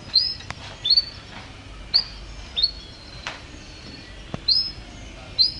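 Domestic canary giving a series of short chirps, each a quick upward sweep that levels off, six of them about a second apart. A few sharp clicks fall between the chirps.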